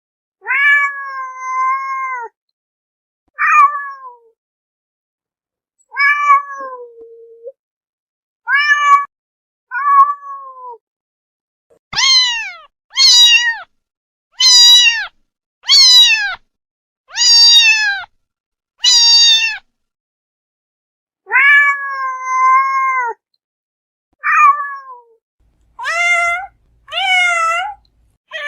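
Domestic cat meowing over and over: about sixteen separate meows, many falling in pitch, with a quicker run of short meows about one a second in the middle.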